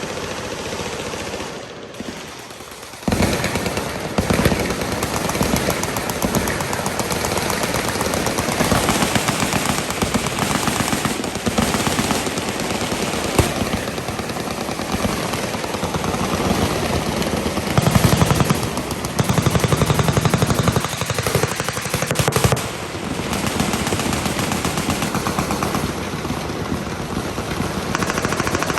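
Automatic machine-gun fire: rapid, overlapping bursts that become louder and almost unbroken from about three seconds in.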